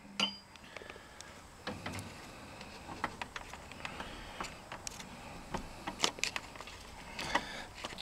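Irregular small metallic clicks, taps and scrapes as a screwdriver works the screw terminal on a breaker panel's ground bus bar, fastening a ground wire.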